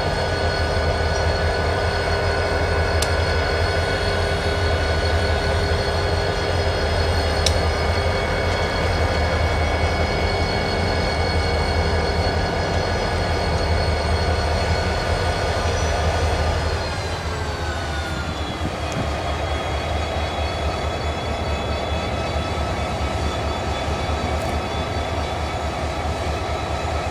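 Freight train running steadily: a low rumble with a high, many-toned whine. About seventeen seconds in, the whine slides down in pitch and the rumble eases.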